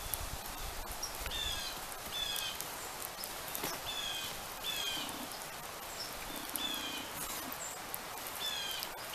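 Birds calling, with short high chirps that slide downward and come in pairs or short runs every second or two. Behind them, a soft scraping of wet sand as soil is pushed with a stick over a fire pit.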